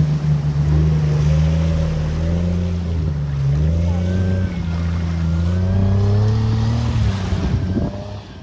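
Jeep Wrangler engine pulling hard as the Jeep drives out of shallow lake water and up a sandy bank, with water splashing at first. The engine pitch climbs steadily through the middle, and the sound falls away near the end.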